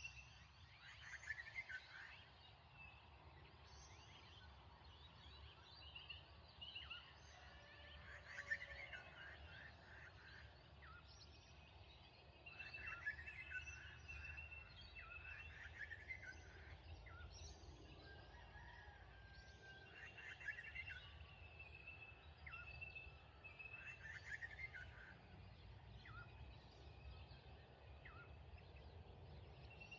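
Faint birds calling at dusk: clusters of quick chirps and short, high whistled notes come every few seconds, over a steady low background hum.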